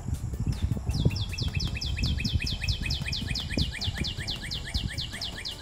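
A bird calling a rapid, even series of short, high, downward-slurred notes, about five a second, starting about a second in and running for several seconds. Wind rumbles and buffets on the microphone underneath.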